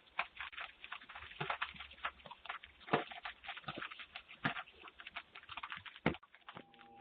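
Raindrops dripping and tapping irregularly close to a Ring doorbell camera's microphone: several sharp light ticks a second over a faint hiss, with the thin sound of the camera's own audio.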